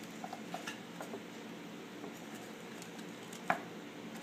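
Faint handling sounds of a wheel being fitted onto a thin brass axle: a few soft clicks and taps, with one sharper click about three and a half seconds in.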